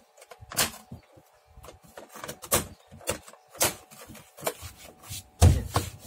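Opel Cascada interior door panel being pressed home onto the door, its plastic retaining clips snapping in: a series of sharp clicks and knocks about a second apart, the loudest with a heavier thump near the end.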